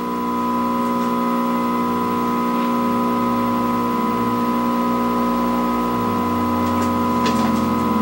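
Steady electrical hum and buzz from the 1960s Canadian Marconi portable vacuum-tube TV's speaker: many held tones at once, with no program sound. It is the hum the set is known to have, a sign of noise getting into its audio.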